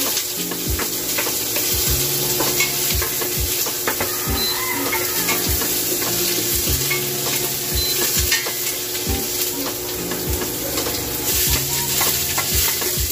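Chopped garlic sizzling in hot cooking oil in a stainless pressure-cooker pot, with a wooden spatula scraping and knocking against the pot as it is stirred.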